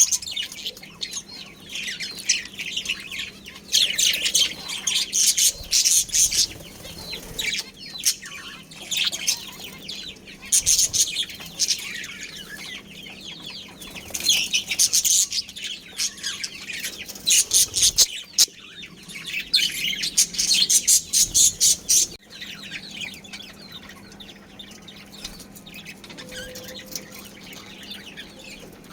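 Budgies chattering and chirping in a rapid, high warble that swells in loud bursts every few seconds, quieter and sparser for the last several seconds.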